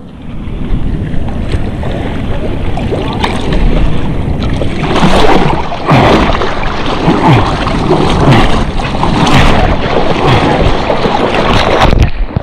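Seawater sloshing and splashing close around a low action camera as a surfer paddles a surfboard, hands stroking through the water. About five seconds in the splashes get sharper and brighter and keep coming until near the end.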